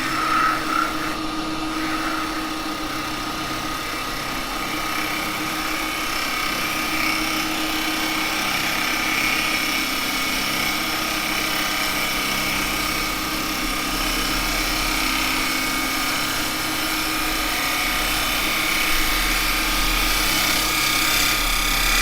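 Axminster woodturning lathe running while a carbide chisel takes a steady finishing cut along spinning wet cherry wood: a continuous, even cutting noise over the lathe motor's hum.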